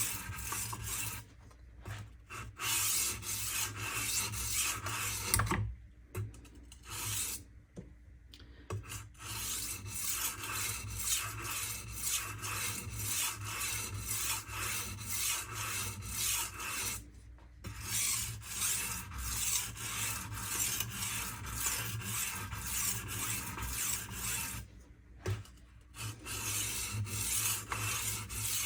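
W2 steel kitchen knife blade being stroked across the medium aluminum oxide stone of a Smith Tri Hone: repeated scraping strokes, about two a second, with a few short pauses.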